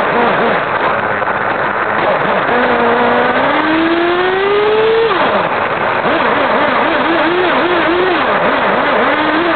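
Kyosho radio-controlled car's motor, recorded from a camera riding on the car, running under throttle on an asphalt track. Its pitch climbs steadily as the car accelerates, drops sharply about five seconds in, then rises and falls over and over as the throttle is worked.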